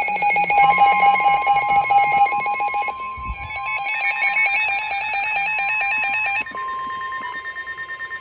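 Several NOAA weather radios alerting at once: the broadcast's steady warning alarm tone under the radios' own rapidly pulsing alert beeps. The beep pattern changes about three seconds in and again a little after six seconds, and the steady tone runs on as the voice warning is about to begin.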